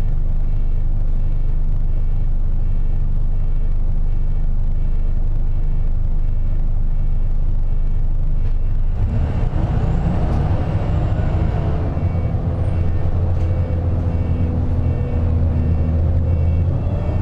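City bus engine idling at a stop, heard from inside the bus. About nine seconds in it revs up with a rising pitch as the bus pulls away, then keeps running louder as it drives on.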